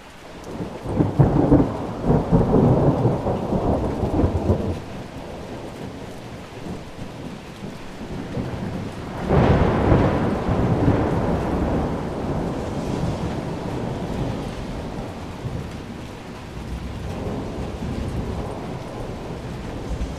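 Thunder rolling over steady rain. A long peal starts about a second in and rumbles for several seconds. A second peal begins more sharply about nine seconds in, then rolls on and slowly fades, with a smaller swell near the end.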